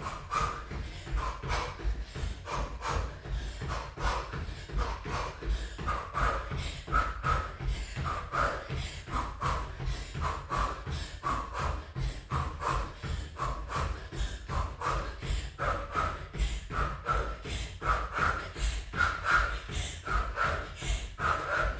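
Trainers landing in a steady rhythm, about three footfalls a second, on an exercise mat over a wooden floor during high-knee jogging in place, with hard exercise breathing in puffs.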